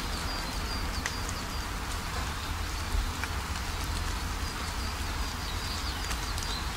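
Fish sizzling on a grill: a steady crackling hiss with scattered small pops, and a faint high chirping throughout.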